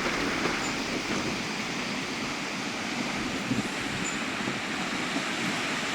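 Steady rushing noise of a severe thunderstorm's heavy rain and wind, even throughout.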